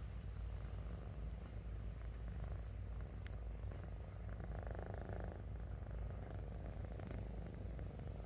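Sleeping kitten purring: a steady low rumble.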